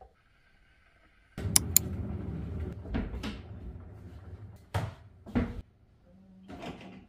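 Kitchen handling sounds: a cupboard door and items being knocked and set down on a counter, a couple of sharp clicks and several knocks over a low rumble.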